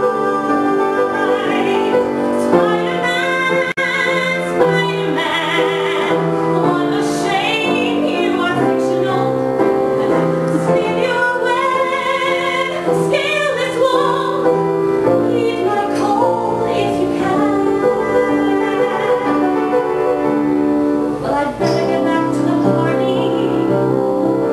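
A woman singing a song solo with vibrato, accompanied by piano.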